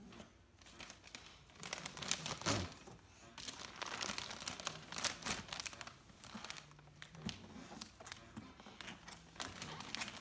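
Wrapping paper being torn and crinkled by a baby's hands: irregular rips and rustles that come and go.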